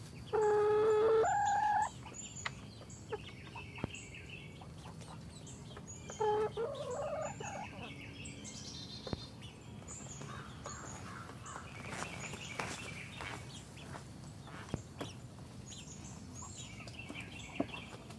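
Chickens calling: a loud drawn-out call near the start that jumps up in pitch partway through, and a shorter rising call about six seconds in, with soft clucking between.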